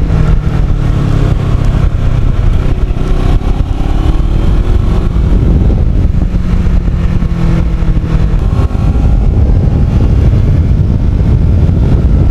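Kawasaki Ninja 650R parallel-twin engine running steadily under way, heard from the bike with road and wind noise. Its note holds for most of the time, then changes about eight seconds in.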